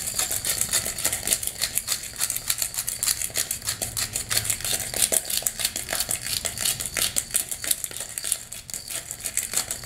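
Cracked black pepper being dispensed from its glass container over a bowl of raw chicken, making quick, dense clicking and rattling that keeps up throughout.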